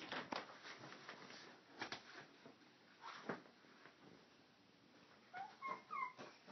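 Faint scattered rustles and taps of a plastic drawer liner being slapped and shuffled on carpet, with a few short high vocal squeaks about five and a half seconds in.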